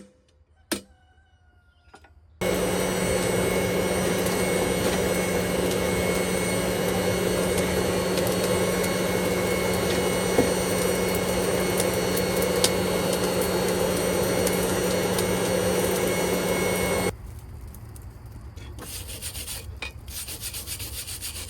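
Electric grinder running steadily with a loud abrasive hiss over a steady motor hum, for about fifteen seconds, then stopping suddenly; fainter scraping and a few clicks follow.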